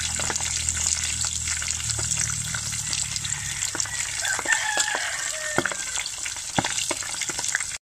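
Pork belly deep-frying in hot oil in a pot: a steady sizzle full of sharp crackles and pops. It cuts off abruptly near the end.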